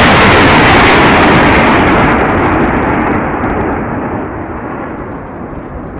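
A salvo of artillery rockets fired from a multiple rocket launcher: a loud, continuous rushing noise from the rocket motors, fading steadily over the last four seconds as the higher sound dies away first.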